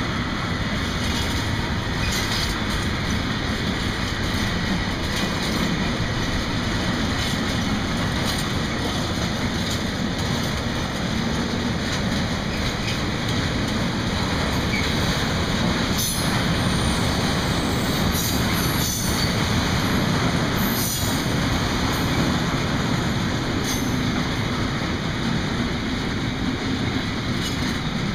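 Freight wagons rolling past: a steady rumble of steel wheels on the rails, with clicks as the wheels cross rail joints. A little past halfway there are a few short, high-pitched squeals from the wheels.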